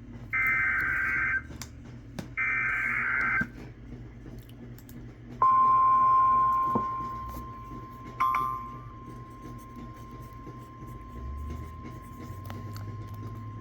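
Emergency Alert System broadcast over NOAA Weather Radio: two short bursts of the warbling SAME digital header tones. After a pause of about two seconds comes the 1050 Hz weather-radio warning alarm, one steady high tone held for about nine seconds that grows quieter after its first second or so. Together they announce a new severe thunderstorm warning.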